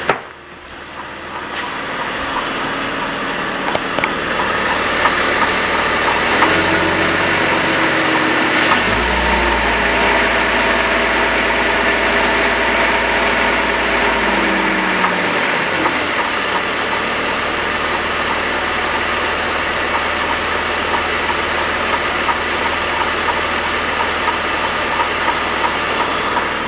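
BMW E46 330i inline-six engine idling with a rhythmic galloping clank that persists after a new primary timing-chain tensioner. The engine note rises for several seconds midway, then drops back to idle.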